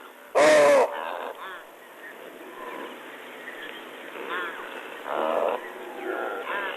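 Baboons calling during a fight: one loud, harsh call about half a second in, then repeated shorter calls that rise and fall in pitch, the alarm uproar of a troop disturbed by a fight between big males.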